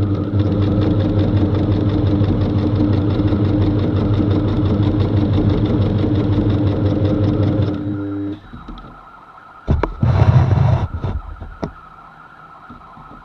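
Sewing machine running at speed, stitching a rolled hem through thin hammock fabric with a fast, even needle rhythm, then stopping abruptly about eight seconds in. About two seconds later there is one short, loud burst of noise.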